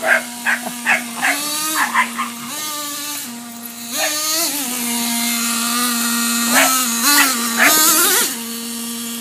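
Dogs barking in quick succession for about the first second. Under the barking, the remote-control truck's motor whines steadily, rising in pitch in short bursts several times as it is throttled and then settling back.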